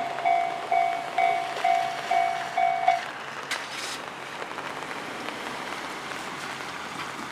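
Japanese level-crossing alarm bell ringing, about two dings a second, then stopping about three seconds in as the crossing clears after the train; a steady hiss remains.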